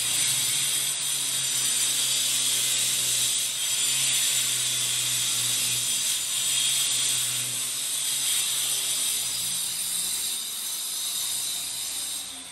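Background music with a jingling, tambourine-like shimmer over a bass line that changes note every second or so.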